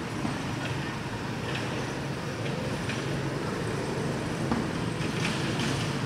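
Steady background rumble and hiss with a constant low hum, and a few faint ticks.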